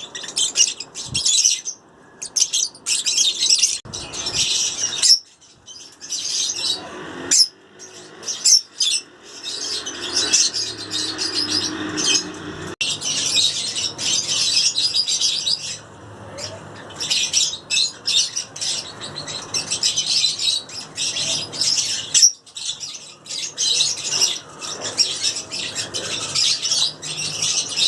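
Lovebirds chattering: a dense, continual stream of shrill, high chirps from several birds at once.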